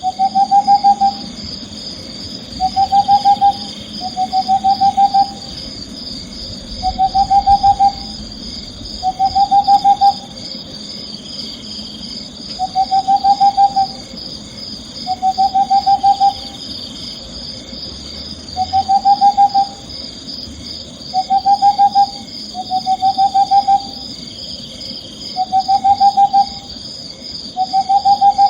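An owl repeatedly giving short, rapidly pulsed trilling hoots, each about a second long and rising slightly in pitch, every two to three seconds. A steady high-pitched chirring runs underneath.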